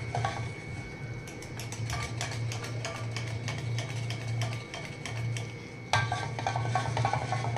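Wooden hand churner (mathni) spun back and forth between the palms to whisk thick curd in a steel pot: a rapid, irregular clicking and rattling that gets louder about six seconds in.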